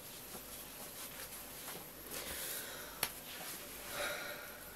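Quiet room with faint rustling and one sharp click about three seconds in.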